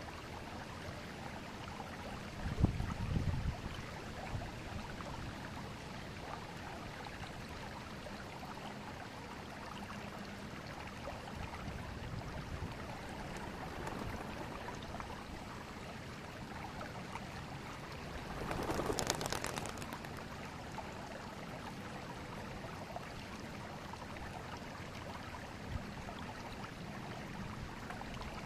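River water flowing steadily over a forest streambed. About three seconds in there is a short, loud low rumble, and a brief louder rush of noise a little past the middle.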